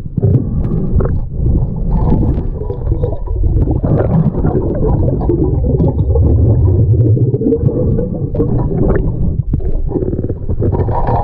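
Underwater rumble of moving river water heard through a submerged camera, with bubbling and scattered small knocks as a snorkeller handles objects on the riverbed.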